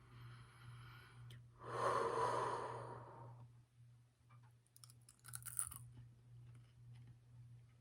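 A person's long, heavy breath out, like a sigh, about two seconds in. Brief crackling clicks follow about five seconds in, over a steady low hum.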